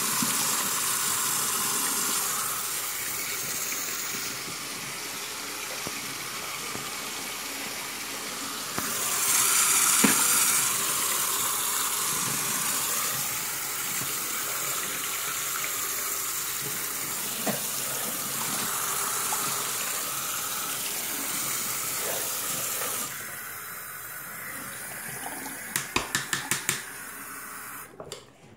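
Tap water running steadily into a bathroom sink, swelling louder for a couple of seconds about ten seconds in and easing off a little before the end. Near the end comes a quick run of sharp taps.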